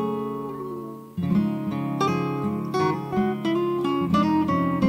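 Background music played on acoustic guitar, with plucked and strummed notes. A phrase dies away and a new one starts about a second in.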